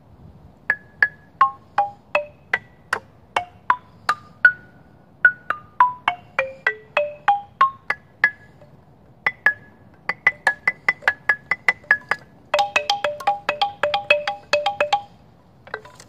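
A xylophone played with mallets: a tune of single struck, ringing notes that step up and down in pitch, then a quicker run of repeated notes, then two notes struck together in fast succession for a few seconds before the playing stops.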